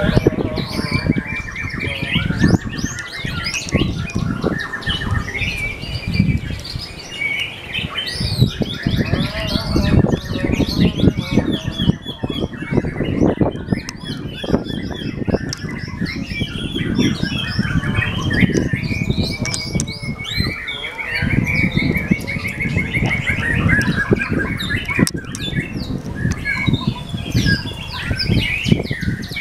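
Caged songbirds, among them a white-rumped shama, singing without pause: a dense, varied run of quick rising and falling whistles, trills and chirps. Under the song runs a steady low rumble with thumps.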